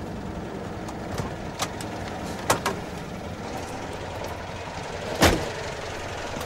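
Citroën Ami idling with a steady low hum while its door is worked: a few latch clicks, then the door shuts with one loud knock about five seconds in.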